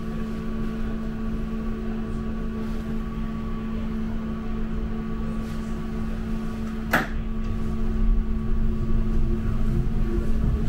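Bombardier M5000 tram's steady electrical hum while standing at a stop, with a sharp click about seven seconds in. Near the end a low rumble rises as the tram starts to pull away.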